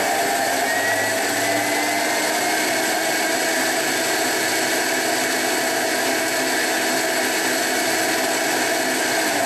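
Thermomix food processor blending at full speed (speed 10), its blades whirring steadily through the hot cooked blackberry mixture. The sound is loud and even.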